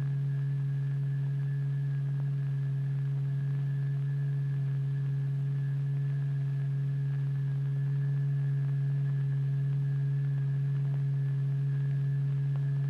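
A steady, low pure tone held at one pitch with fainter overtones above it: the sine-tone signal driving the vibrating membrane in a cymatics experiment.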